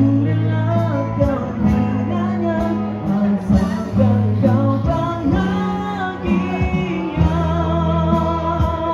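Live band music: a singer's voice through a PA system over sustained keyboard chords and an acoustic guitar.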